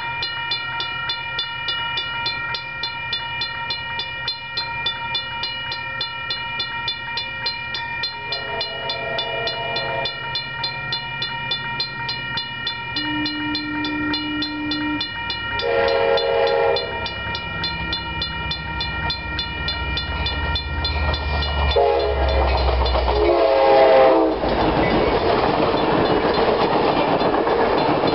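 A bell ringing rapidly and steadily while an approaching Amtrak passenger train sounds its horn in the crossing pattern: long, long, short, long. The ringing stops about 22 seconds in, and the train then arrives and passes with a loud rumble of wheels and cars.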